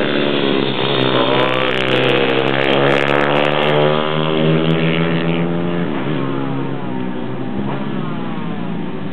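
Pit bike engines revving hard as the bikes race past close by, their pitch gliding down as they pull away. The note changes again about six seconds in, and the sound grows a little fainter towards the end.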